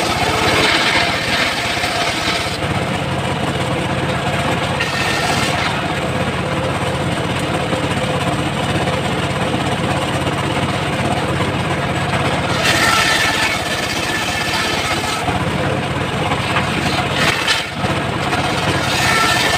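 Home-built engine-driven circular sawmill (gergaji serkel) running steadily on teak. A harsher, hissing cutting noise swells over the engine's hum four times: at the start, around five seconds in, about thirteen seconds in, and near the end.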